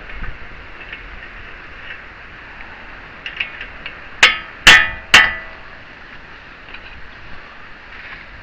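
Three hammer blows on a socket set over the nut on the end of a CV axle, each a loud metallic clang that rings briefly, about half a second apart, with a few light taps just before. The blows are driving the axle shaft out of the wheel hub's splines.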